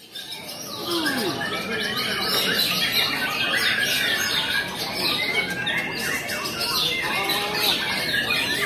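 A chorus of many caged songbirds singing at once in a contest arena, dense overlapping fast chirps and trills. It swells in during the first second and then keeps up without a break.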